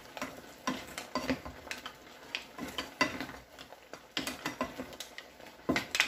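Wooden spatula stirring mussels and shrimp in a frying pan: irregular clacks and knocks of the mussel shells against each other and the pan, a few a second, louder near the end.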